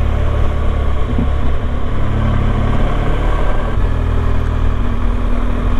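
BMW R1200GS Adventure's boxer-twin engine running steadily while riding, heard through a microphone inside the rider's helmet.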